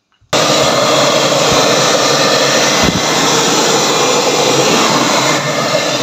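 Handheld electric hot-air blower switched on about a third of a second in and running steadily with a loud, even rush of air. It is blowing hot air onto the fridge's stiff plastic inner back panel to soften it so the panel can be taken off.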